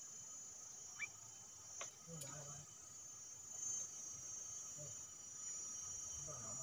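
Insects droning steadily at a high pitch, faint, with a short rising chirp about a second in and a few soft clicks.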